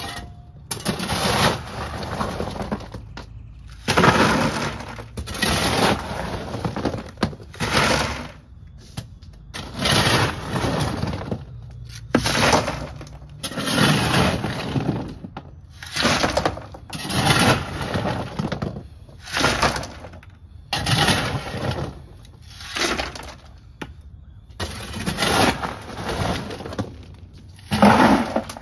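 Steel shovel digging into a pile of river rock in a pickup bed, the rocks rattling and scraping. It goes scoop after scoop, about one every second or two, as shovelfuls are loaded into plastic buckets.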